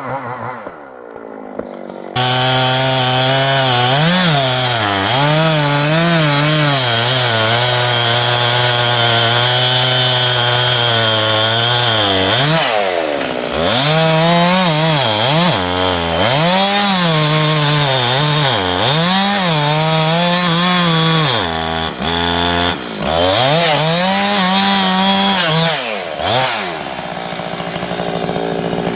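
Chainsaw running at high revs, coming in abruptly about two seconds in. Its pitch dips and recovers again and again as the chain bites into wood under load. Near the end it falls back to a lower, rougher running sound.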